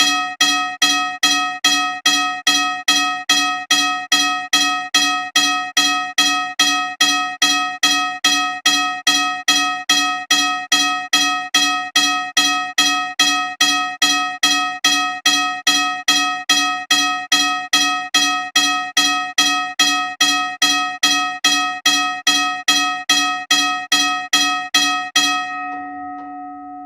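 US&S teardrop mechanical railroad crossing bell striking steadily, about two strokes a second, with a bright metallic ring. The strikes stop near the end and the bell rings on, fading away.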